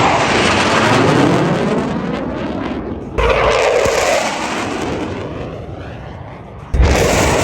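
Loud aircraft noise at an airshow, broken twice by sudden loud booms, about three seconds in and again near the end. Each boom dies away over the following few seconds.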